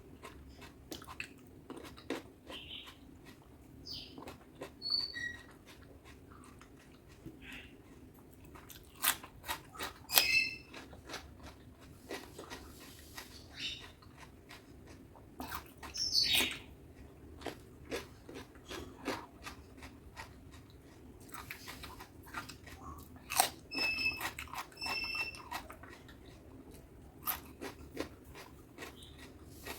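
Close-miked eating sounds: wet chewing, lip smacks and irregular sharp clicks, as a person eats butter chicken with rice.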